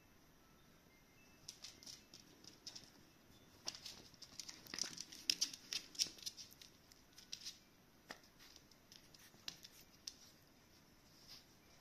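Shiba Inu puppies' claws and paws pattering on a hard floor: faint scattered light clicks and scuffs, busiest in the middle.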